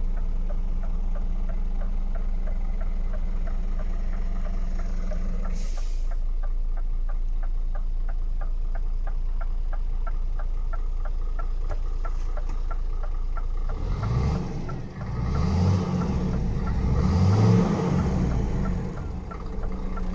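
Scania R500 truck's 13-litre inline-six diesel idling steadily, with a short hiss about six seconds in. From about fourteen seconds in the engine is revved up and down several times, then drops back to idle near the end.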